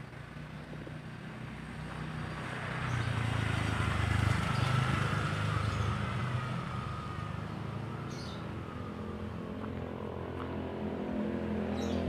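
Motor vehicle engine passing along a nearby road, growing louder to a peak about four seconds in, then fading before rising again near the end.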